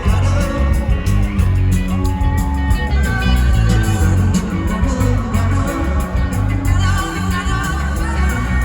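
Live rock band playing loud, with guitars, driving drums and bass, and singing.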